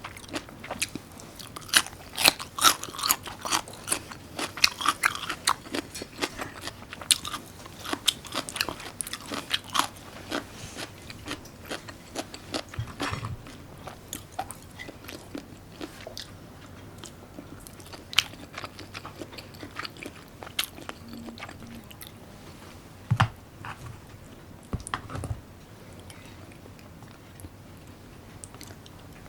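Close-miked chewing and biting of food, full of sharp wet mouth clicks and smacks. The clicks come thick and fast at first and grow sparser in the second half, where a couple of dull bumps stand out.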